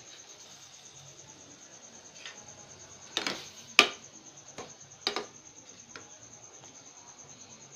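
A handful of sharp clinks of a metal pot and kitchen utensils, the loudest about four seconds in, over a steady, high, pulsing cricket trill.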